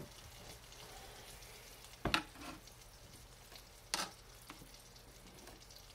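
Butter sizzling faintly in a skillet, with two sharp knocks of a kitchen knife cutting through mushroom onto a plastic cutting board, about two seconds in and again about four seconds in.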